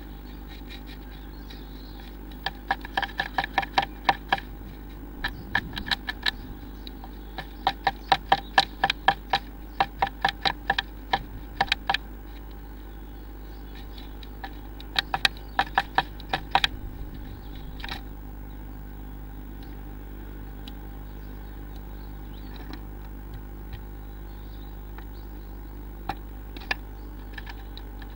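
Blue tit pecking at the wooden wall of a nest box: runs of sharp taps about four a second, in three bursts with a few single taps later, over a steady low hum.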